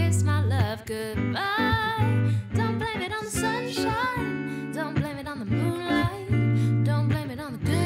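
A man and a woman singing a pop song together in harmony over a hollow-body electric guitar.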